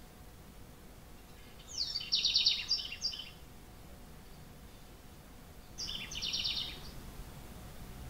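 House wren singing: two short songs of fast trilled high notes, one about two seconds in and a second, quieter one about six seconds in.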